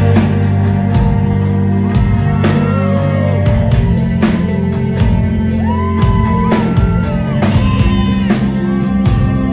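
Rock band playing live, heard from among the audience: a steady drum beat over bass and guitar, with pitched lines that slide between notes above.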